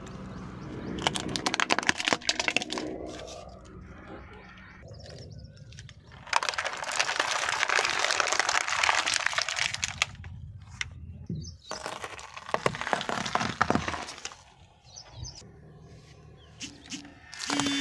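Car tyre slowly rolling over and crushing small plastic toy vehicles, with sharp cracks and snaps. About six seconds in comes a loud, dense crackle lasting several seconds as a plastic water bottle is flattened under the tyre. Further cracks follow.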